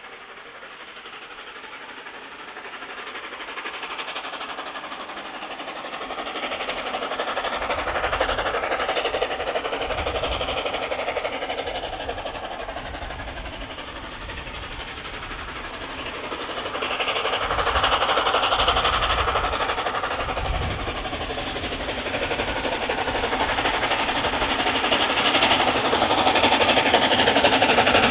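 Steam locomotive hauling a train past on the line, its running noise and exhaust growing louder in swells.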